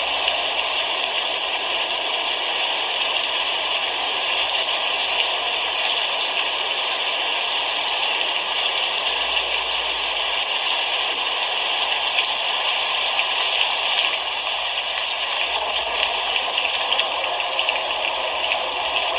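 Steady rain falling: a dense, even patter of drops that holds at one level throughout.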